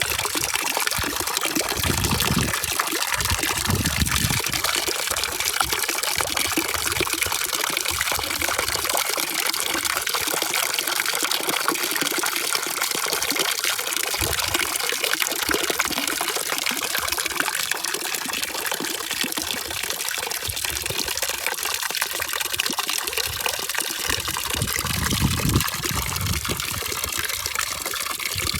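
Running water rushing steadily as an even, continuous hiss, with a few brief low rumbling swells.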